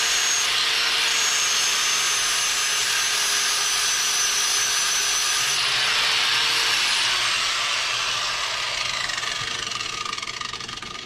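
Electric angle grinder sharpening the edge of a steel lawnmower blade: a loud, steady grinding with a high whine. About seven seconds in the grinder is switched off and winds down, its whine falling away.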